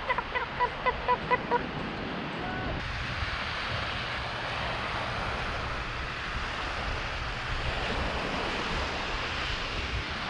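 Sea waves washing on the shore, a steady rushing, with wind on the microphone. For the first second and a half a run of short, evenly repeated pitched calls sounds over it, about three a second, then stops.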